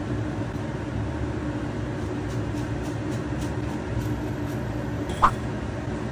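Steady low kitchen hum with a few faint ticks as fried sweet potato balls are scooped from the oil into a wire-mesh strainer. One short, sharp metal clink about five seconds in.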